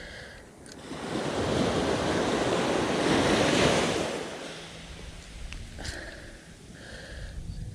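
Ocean surf breaking on a sandy beach: a wave swells up about a second in, rushes loudest around three to four seconds, then fades to a quieter wash, with some wind on the microphone.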